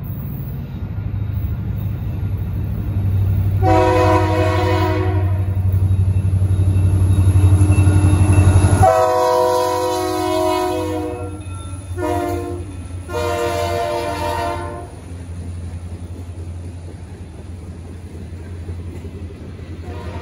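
Indiana Rail Road diesel freight locomotive approaching and passing with its engine running, horn sounding four blasts (long, long, short, long), the grade-crossing signal. The horn's pitch drops as the locomotive goes by about nine seconds in, and the engine rumble falls away. Freight cars then roll past with clicking wheels.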